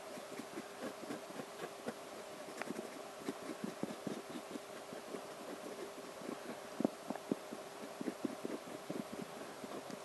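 Fine-tip pen tip dabbing and scratching on the tiny plastic cubies of an 8mm Rubik's cube: a run of small irregular taps, a few per second, the loudest about seven seconds in, over a faint steady hum.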